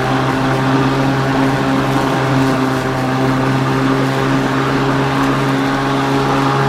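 Lawn Works 40V battery-powered push mower running while mowing grass: the electric motor and spinning blade give a steady hum.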